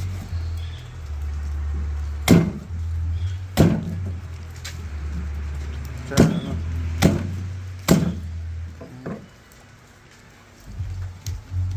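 Machete chopping into a large fish on a hard surface: five sharp chops spread through the first eight seconds. A steady low rumble runs underneath and stops near the end.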